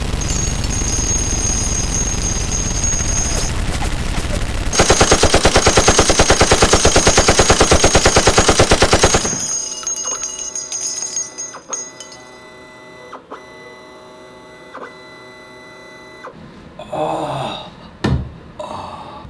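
Sustained automatic machine-gun fire, a rapid steady rattle of about nine shots a second, loudest and sharpest from about five seconds in and cutting off abruptly about nine seconds in. Near the end a man groans and gasps.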